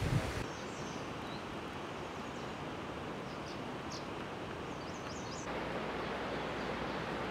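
Outdoor ambience: a steady hiss of background noise with a few faint, short, high-pitched bird chirps scattered through the first five seconds.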